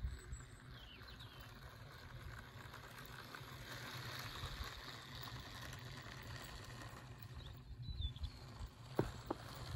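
Model rail truck running on garden railway track, faint at first and louder as it comes close, with a few sharp clicks from its wheels on the rails near the end.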